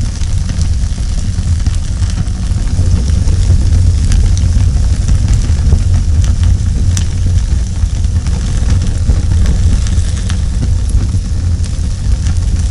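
Fire sound effect: a steady deep rumble of burning flames, with scattered crackles throughout, cutting off suddenly at the end.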